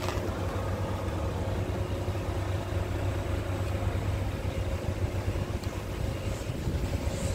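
Scania R450 truck's diesel engine idling steadily, a constant low hum with a faint steady whine above it.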